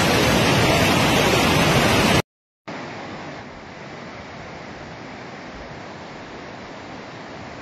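Swollen floodwater rushing in a torrent, a loud steady rush that cuts off about two seconds in. After a short silent gap comes a quieter, duller steady rush of a flooded river heard from further away.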